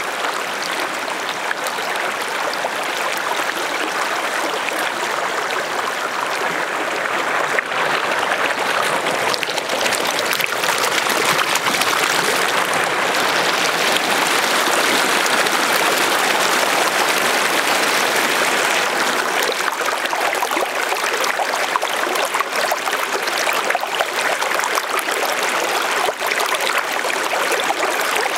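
Lake water moving and trickling in a steady wash, dotted with many small splashes, a little louder in the middle stretch.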